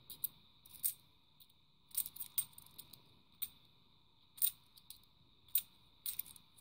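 UK 50p coins clinking against each other in a hand as they are shuffled through one by one: a dozen or so sharp chinks at irregular intervals.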